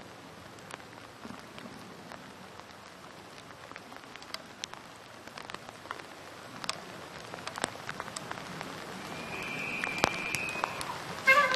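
Light rain, a soft hiss with scattered drops ticking close by. Just before the end a loud, steady pitched call with overtones begins.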